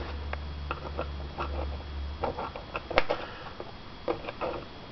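Light clicks and scrapes of a flathead screwdriver tip prying small screw-cover stickers off a laptop's plastic lid, with one sharper click about three seconds in. A low hum runs under it and stops about two seconds in.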